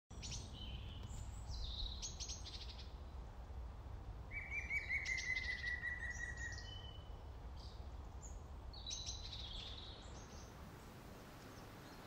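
Several woodland songbirds singing and chirping in short phrases, with one longer trill of quick repeated notes a little past four seconds in. A steady low rumble lies underneath and fades near the end.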